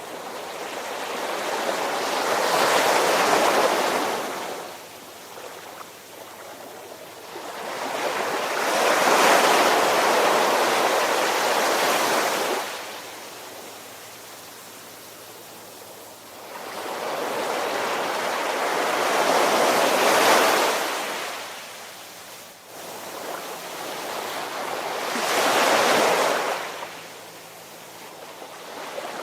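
Ocean waves surging in and drawing back, a hiss of water that swells and fades four times, about every six seconds.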